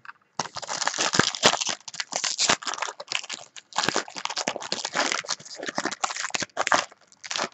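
A trading-card pack wrapper being handled and opened, crinkling and rustling in irregular bursts.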